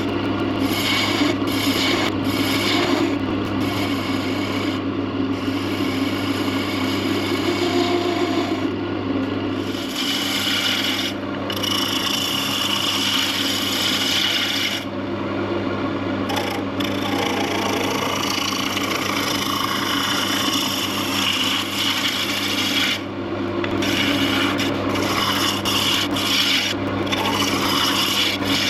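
Wood lathe motor humming steadily while a tool works the spinning wood, giving a continuous rasping hiss that breaks off briefly several times.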